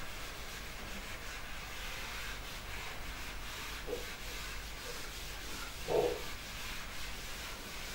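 Faint scratchy rubbing of writing strokes as a graph of a parabola is drawn. A brief low sound about six seconds in.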